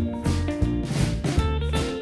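Background music: a band with guitar, bass and drums playing a steady beat.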